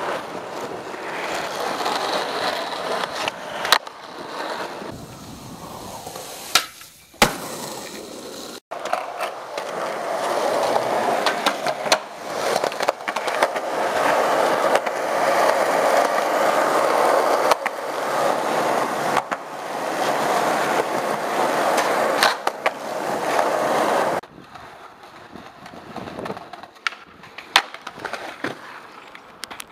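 Skateboard wheels rolling on pavement with a steady gritty whirr, broken now and then by sharp clacks of the board popping and landing. The rolling is loudest through the middle and drops to a fainter roll near the end.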